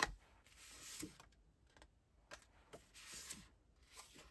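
Sheets of printed scrapbooking paper being leafed through and slid against one another by hand: a light tap, then several soft rustling swishes.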